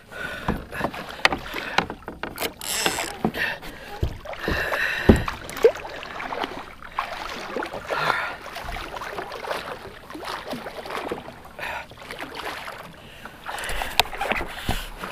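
Water splashing in bursts as a hooked hammerhead shark thrashes its tail at the surface beside a kayak, with scattered sharp knocks and clicks from the line and hull.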